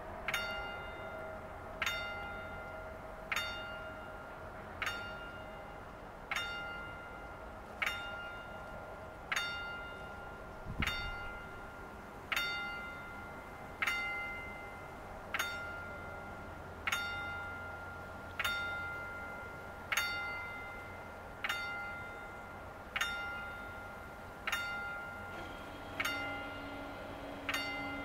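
The original electric warning bell of an EBÜT80 level crossing strikes single ringing strokes about every one and a half seconds, signalling that the crossing is closing. Near the end a steady hum joins in as the barrier drives start lowering the booms.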